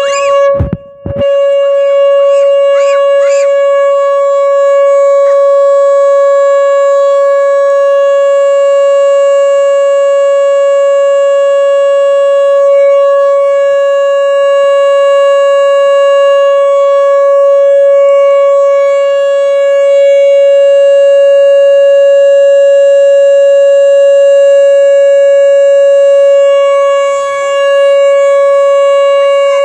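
Outdoor tornado warning siren sounding its test: one very loud, steady tone held at a fixed pitch. It drops out briefly about a second in.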